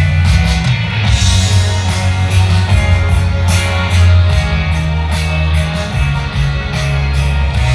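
Loud rock-style music with guitar over a steady, held bass line.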